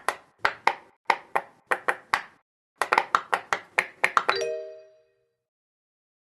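Silicone pop-it fidget toy bubbles being pressed, a string of sharp pops about three a second, then after a short pause a quicker run of pops. The last pop is followed by a brief ringing tone that fades within about half a second.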